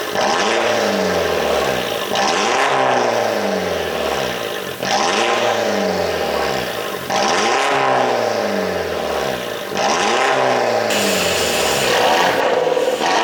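MINI Cooper JCW R56's turbocharged 1.6-litre four-cylinder revved about five times, roughly every two and a half seconds, each rev falling back with a rough crackle from an exhaust tuned through the ECU to pop on the overrun.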